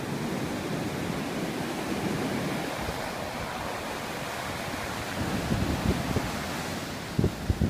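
Ocean surf breaking and washing up the beach, a steady rush. In the second half, wind buffets the microphone in a few short low thumps.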